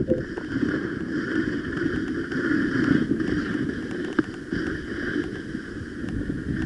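Skis sliding and scraping steadily over wind-crusted snow on a downhill run, a rough continuous hiss with a few light clicks.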